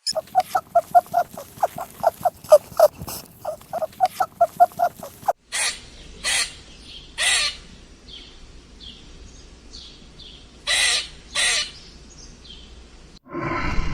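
Birds calling: a fast, even run of about four short pitched calls a second for the first five seconds, then five loud harsh squawks with faint chirps between them. A deep animal roar begins just before the end.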